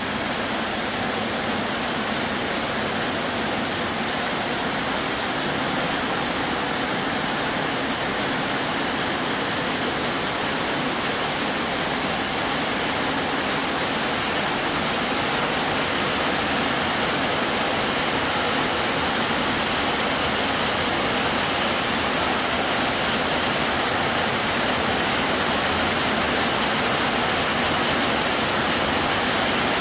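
Heavy rain pouring down steadily in a thunderstorm downpour, a dense even hiss that slowly grows a little louder.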